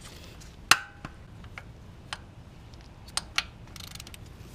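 Metal hand tools clinking on the 14 mm engine mount bracket bolts as they are worked loose: one sharp, ringing clink about two-thirds of a second in, then scattered lighter clicks and taps.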